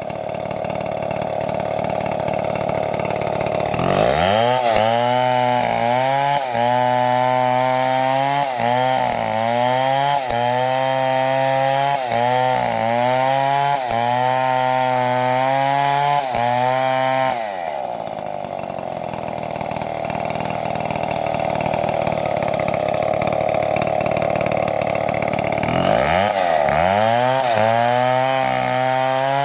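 Stihl MS720 chainsaw at full throttle. It runs free at a steady high pitch, then from about four seconds in its pitch drops and wavers as the chain bites into the wood, and it stays loaded in the cut for over ten seconds. Out of the cut it revs up freely again, then drops back into the cut near the end.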